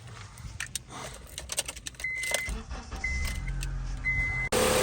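Keys jangling and clicking at the ignition of a 2003 Honda CR-V, with three short warning-chime beeps about a second apart and a low rumble. Near the end the engine starts, now that the bad main relay has been replaced.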